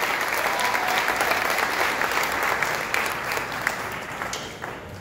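Audience applauding: dense clapping that thins out near the end to a few scattered claps.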